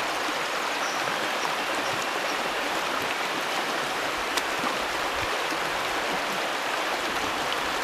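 Steady rush of stream water flowing over rocks, with one faint click about halfway through.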